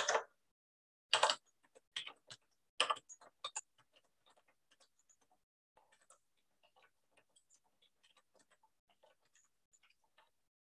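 Typing on a computer keyboard: a few louder keystrokes in the first three seconds or so, then a long run of faint, quick key taps.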